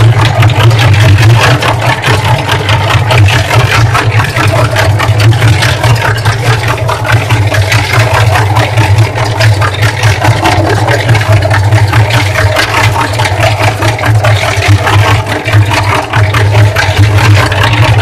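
Cement mixer running steadily with a low hum, its turning drum churning clothes in soapy water, which sloshes and splashes out of the mouth, with a rattle.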